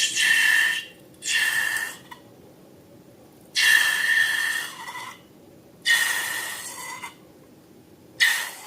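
Air rushing out of a balloon's neck in five separate hissing bursts, each with a steady squealing pitch; the last is the shortest.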